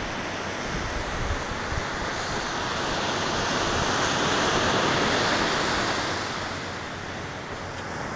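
Sea surf washing onto a sandy beach, a steady rush that swells to its loudest around the middle and eases off. Wind buffets the phone's microphone in places.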